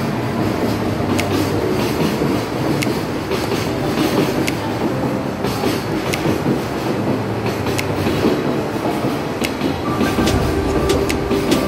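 Train moving on station tracks: a steady rumble with irregular sharp clacks of wheels over rail joints. About ten seconds in, a steady tone starts over it.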